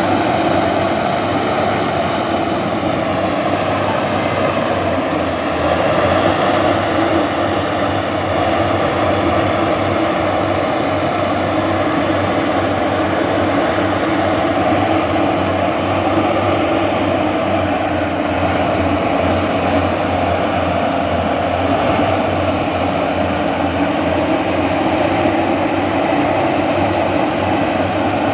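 Combine harvester's diesel engine and machinery running steadily and loudly, a continuous heavy mechanical drone with a slight dip in pitch a few seconds in.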